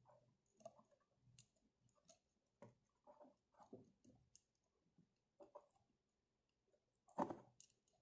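Faint scattered clicks and rustling of small plastic wire connectors and cables being handled and pushed into the ports of an APM 2.8 flight controller board, with a louder short knock about seven seconds in.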